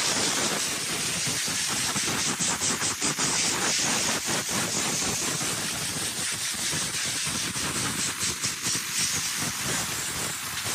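Compressed gas hissing out of an open-ended hose at full cylinder pressure, with no regulator, as it is blown through a refrigeration condenser coil to blast out packed dirt. The hiss is continuous and loud, wavering as the hose moves along the fins.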